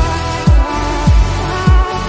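Electronic background music: a deep kick drum that drops in pitch on each hit, about every 0.6 s, under sustained synth chords.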